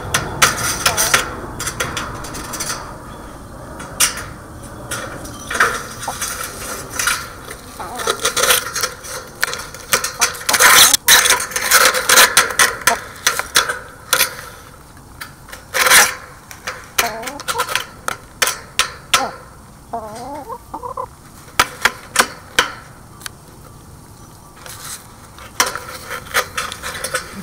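Hens right at the camera: a string of sharp taps and scratchy rustles close to the microphone as they peck and brush against it, with a few soft, wavering clucks just past the middle.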